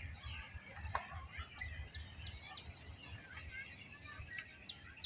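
A chorus of small birds chirping and calling, many short chirps and quick falling notes overlapping, over a low uneven rumble. A single sharp click about a second in.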